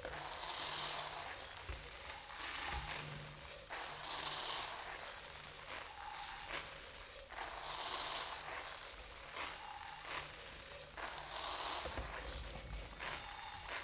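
A thin stream of rice grains pouring from a swinging cone pendulum onto a rice-covered floor and a sheet of rice paper, a fine hissing patter. It swells and fades in regular waves about every second and three quarters as the pendulum sweeps back and forth.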